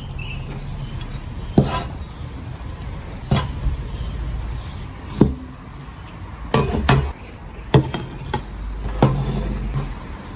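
Kitchen knife chopping on a wooden cutting board, single sharp knocks about every one to two seconds, over a low steady hum.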